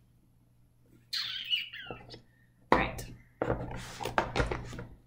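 Packing a fabric lunch bag: a brief high squeak with a gliding pitch about a second in, then a thunk and a stretch of rustling and knocking as plastic utensil cases and containers are pushed into the bag.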